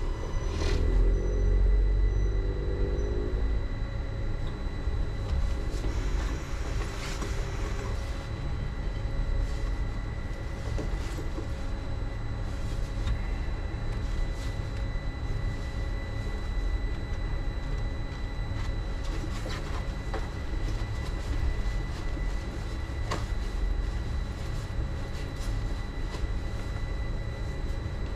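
Uijeongbu Light Rail VAL train heard from inside the car as it runs along the elevated guideway on rubber tyres: a steady low rumble, with a motor whine that rises in pitch over the first few seconds as the train gathers speed.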